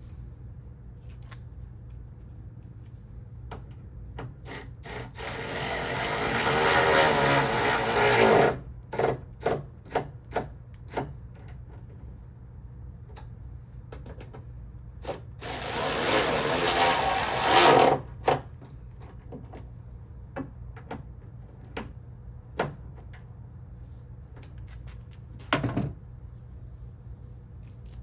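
A power drill/driver running 10 mm bolts back in to hold a tail light housing. There are two long runs, about five and fifteen seconds in, each followed by a few short trigger bursts as the bolt is snugged down, with light clicks of handling between.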